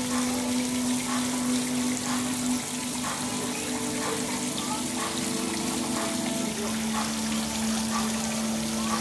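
Water trickling and splashing into a shallow koi pond, a steady wash of running water. Under it, low held tones shift pitch every few seconds.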